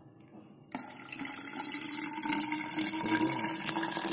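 Water poured from a tin into the tall tube of a model rain gauge, a steady stream splashing down inside it, starting suddenly about a second in.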